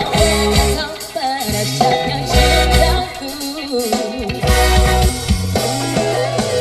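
A song with singing and guitar over deep, held bass notes, played loud through a line-array sound system with subwoofers.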